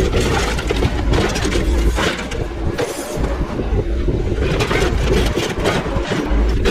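A heavy machine's engine running under load while the metal body of a diesel train's motor car is crunched and scraped apart for scrap, with repeated crunching and grinding noises over a deep rumble.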